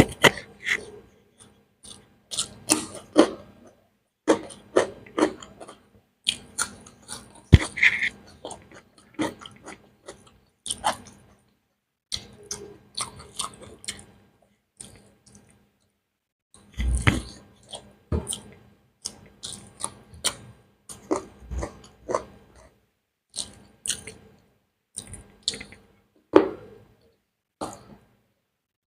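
A person eating beef biryani close to the microphone: irregular chewing and wet mouth sounds with small sharp clicks, coming in quick runs with short pauses between mouthfuls.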